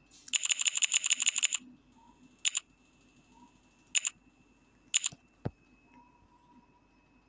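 Smartphone on-screen keyboard key-press clicks: a quick run of about a dozen clicks in just over a second, the auto-repeat of a held backspace erasing text, then three single taps spaced a second or so apart.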